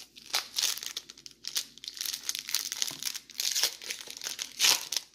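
Foil trading-card pack wrapper being torn open and crinkled by hand, in an uneven run of crackling bursts, loudest just before the end.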